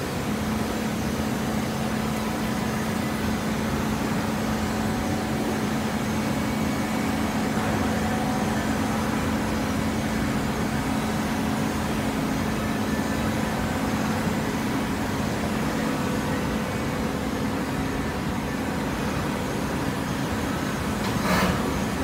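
Horizontal hydraulic baler running: a steady mechanical hum with a constant low tone, and a brief hiss near the end.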